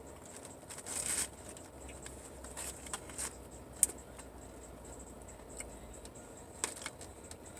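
A person eating fried chicken: faint chewing with scattered small clicks and rustles of food being handled, and one sharper click about four seconds in.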